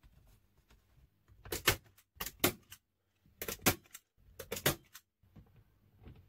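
Hand staple gun firing staples through a fabric covering into a hardboard panel: four sharp double snaps about a second apart, with faint rustling of the fabric in between.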